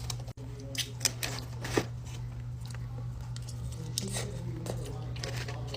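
Close-miked eating sounds: scattered sharp, crisp clicks and crunches of chewing, with some crinkling of food packaging, over a steady low hum.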